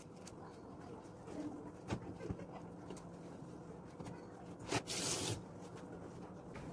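Hands handling raw chicken at a stainless steel kitchen sink: a few soft knocks, then a sharp click and a brief hiss about five seconds in, over faint room noise.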